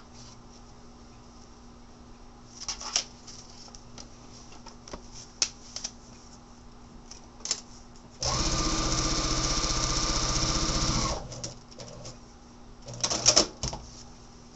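Sewing machine stitching a seam through the paper foundation and fabric in one steady run of about three seconds, starting about eight seconds in and stopping abruptly. Short rustles and clicks from handling the paper and fabric come before and after it.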